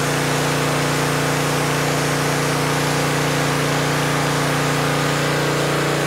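Gas-engine pressure washer running steadily under load, with the hiss of the wand's single-nozzle jet blasting onto concrete.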